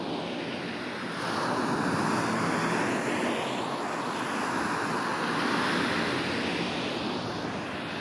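Ocean surf washing onto a sandy beach: the rush of a wave swells about a second in and eases off near the end. The sound is processed as 8D audio, swept around the listener.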